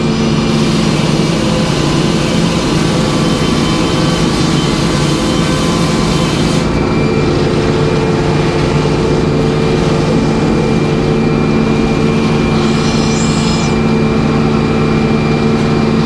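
Circular sawmill running steadily, its large circular blade cutting a board off a log from about half a second in; the cutting noise stops suddenly about six and a half seconds in, and the mill keeps running.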